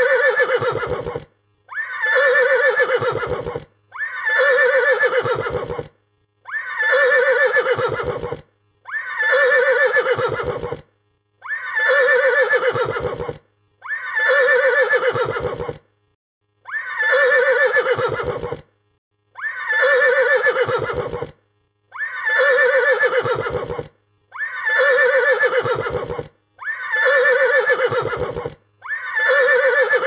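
A horse stallion's intense neigh, the same call played over and over about every two to two and a half seconds. Each call starts high and strong and ends in a low, rapid flutter.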